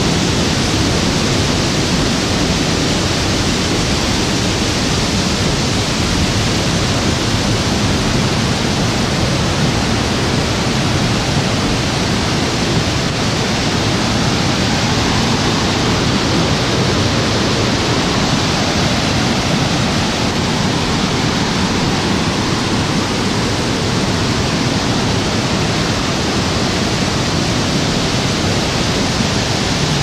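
Steady, loud rush of a mountain stream cascading over boulders in a series of small waterfalls.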